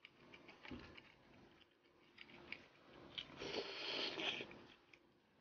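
Faint close-up eating sounds as a roasted button mushroom is bitten and chewed, with scattered small clicks throughout. The loudest part is a stretch of biting noise about three and a half to four and a half seconds in.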